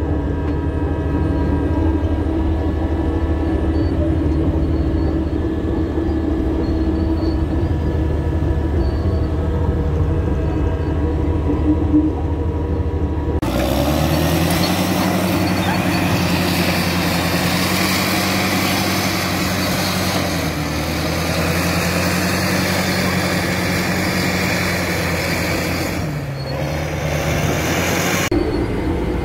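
Caterpillar D6T bulldozer's diesel engine running steadily, heard from inside the cab. About halfway through, the sound switches abruptly to a noisier heavy diesel engine drone with a hiss over it, its pitch dipping briefly and recovering near the end.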